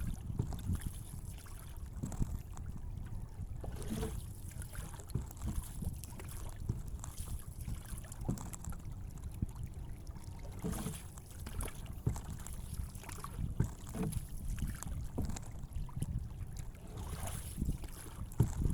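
Outdoor ambience of wind rumbling on the microphone, with water lapping and small splashes.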